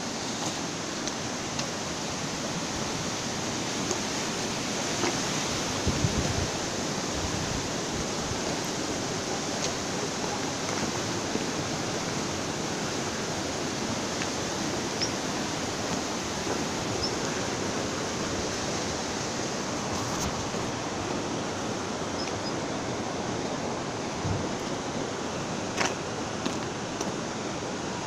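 Steady rushing of a small mountain stream running beside the road, with a few brief low thumps.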